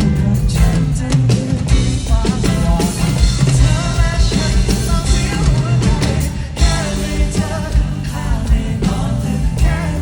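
Pop-rock band playing live: a lead vocal sings over drums, bass and guitars.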